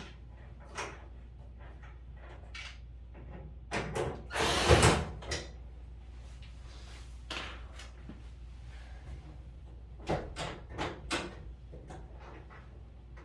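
Clicks and knocks of clothes dryer panels and parts being handled, with a louder scraping rasp lasting about a second some four seconds in and a quick run of knocks about ten seconds in.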